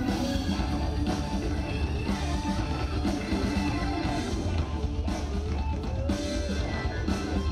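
Live rock band playing: electric guitar through Marshall amps over keyboards, bass and drums, with a few sliding notes from the guitar.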